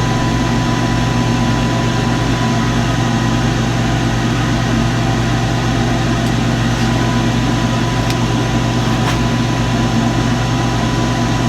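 Seawater circulation pump of a newly installed marine air conditioner running, a steady hum with a faint high whine, before the compressor has started.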